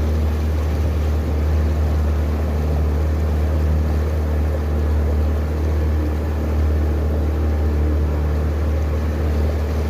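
Small boat's outboard motor running at a steady speed, a constant low drone with a few faint steady tones above it.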